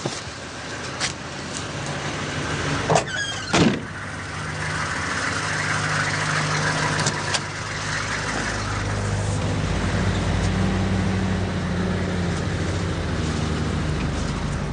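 Car running and driving, with a steady engine hum and road noise that grows louder over the first several seconds; a few sharp clicks and knocks in the first four seconds.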